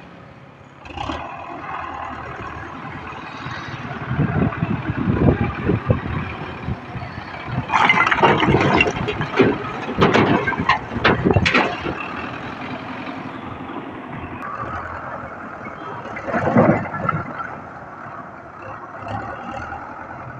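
Russian-made tractor running under load as its front loader bucket works a pile of broken bricks, with a loud clatter of bricks tumbling into a steel trolley about 8 to 12 seconds in and a shorter clatter near the end.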